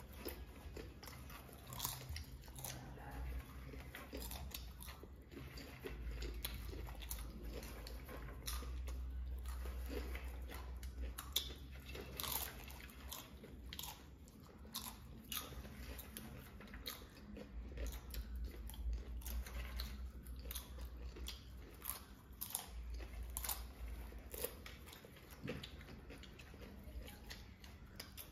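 Two people eating popcorn by the handful, crunching and chewing it in many short, irregular crisp crunches.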